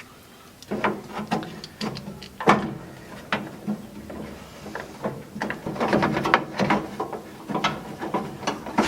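Irregular clicks and light knocks of metal parts on a gas barbecue being worked on.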